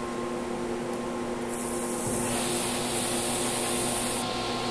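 Wood lathe running with a steady motor hum while sandpaper is held against the spinning wooden mirror frame, giving a continuous rubbing hiss that grows stronger about two seconds in. It is the finish-sanding stage of the turning.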